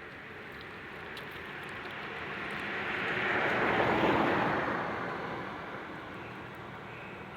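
A vehicle passing by: a steady noise that grows louder to a peak about four seconds in, then fades away.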